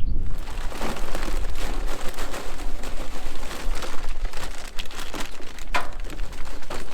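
Crinkling, crackling handling noise as charcoal is set up for lighting, made up of many small clicks and rustles, over a low wind rumble on the microphone.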